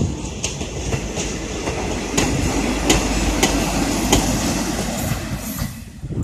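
RegioNova diesel railcar passing a level crossing, a steady rumble with about half a dozen sharp clacks as the wheels cross rail joints. The sound fades away near the end as the unit pulls off.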